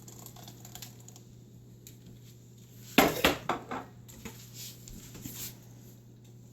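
Kitchen utensils clattering against dishes during food preparation: a quick cluster of sharp knocks about three seconds in, followed by a few lighter taps.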